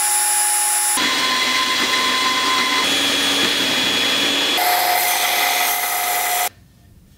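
Portable band saw mounted in a table, cutting the corners off 14-gauge steel square tubing: a steady motor whine with the blade rasping through the steel, in short takes that switch abruptly from one to the next. About four and a half seconds in, a belt sander grinding the steel takes over and cuts off suddenly near the end.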